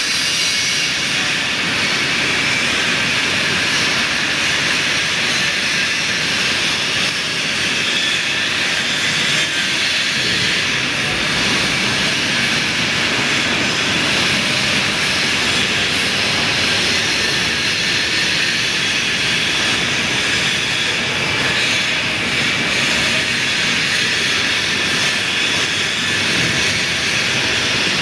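Large workshop lathe running while machining a big ring: a steady, unchanging machine noise with a strong hiss.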